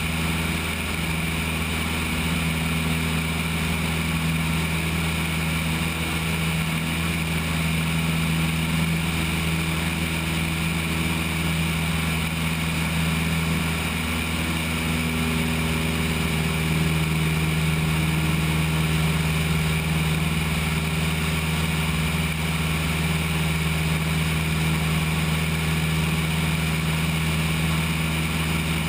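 Cessna 172's engine and propeller droning steadily in cruise flight, heard from out on the wing with a constant rush of air.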